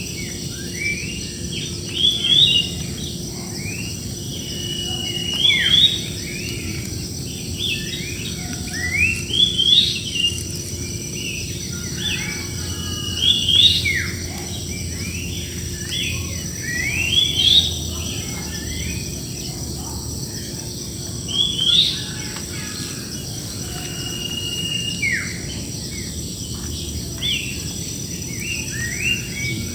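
Several wild birds singing and calling, with bursts of quick sweeping notes recurring about every four seconds, over a steady high-pitched insect drone.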